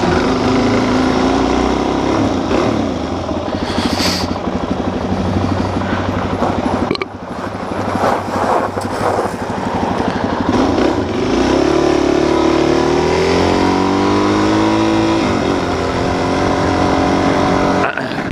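Suzuki DR-Z400's single-cylinder four-stroke engine running under way, with wind noise. About two-thirds of the way through, the engine note climbs steadily as the bike accelerates, then drops off.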